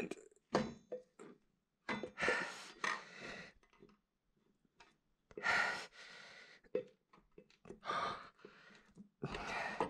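A man breathing hard and straining with effort, with several heavy exhalations, while small clicks and knocks come from the parts he is working on.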